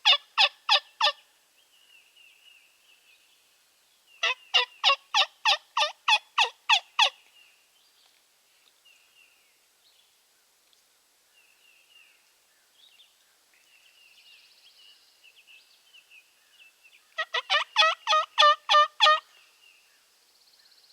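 Hen turkey yelps made on a hunter's turkey call: three loud runs of short, evenly spaced notes, about four or five a second, of roughly five, nine and ten notes. Faint songbird chirps between the runs.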